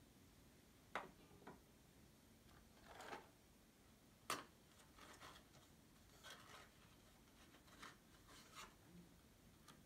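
Faint handling noises of small objects: a few light, sharp clicks, the loudest about a second and about four seconds in, among soft rustling and rubbing.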